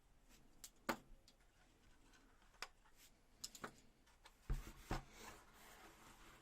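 LEGO plastic pieces being handled: a scatter of light clicks and knocks, the loudest two close together about four and a half seconds in, followed by a soft rustle.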